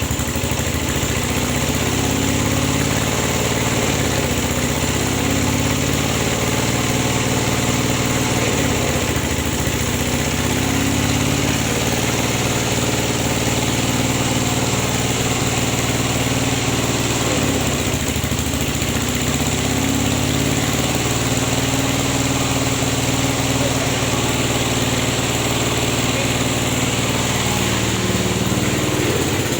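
Engine-driven rubber latex press running steadily at an even speed, with an unbroken engine hum.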